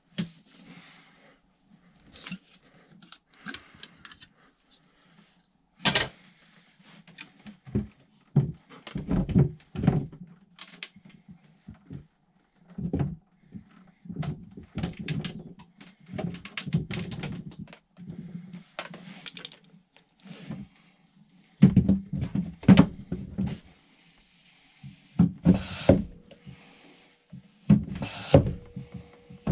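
Irregular knocks, clunks and clatter of hand tools and parts being handled while work starts on a boat's engine, which is now switched off.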